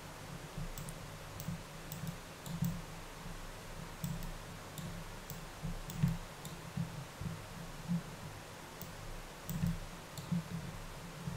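Faint computer mouse clicks, scattered and irregular, with soft low thuds between them.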